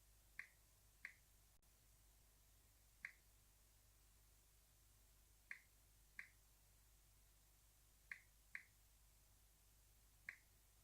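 Faint key-press clicks of a Samsung Galaxy S8 Plus's on-screen keyboard as a Wi-Fi password is typed: about eight short, sharp clicks at uneven gaps of half a second to two and a half seconds.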